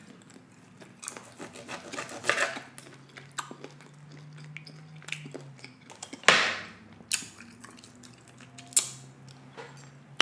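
Close-miked chewing of food, with wet mouth sounds and scattered small clicks and crunches. One louder sharp knock comes about six seconds in.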